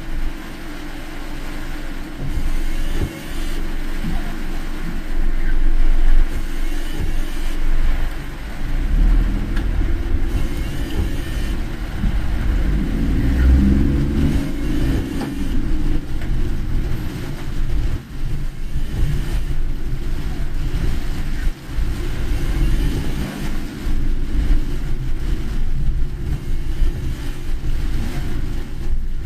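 Car engine and tyre noise on a rain-soaked road, heard from inside the moving car: a steady low rumble, with the engine note rising as the car accelerates about halfway through.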